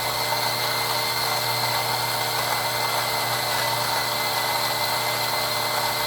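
Built-in grinder motor of a Gemilai 3005G espresso machine running steadily, grinding a double dose of coffee beans, with a constant low hum.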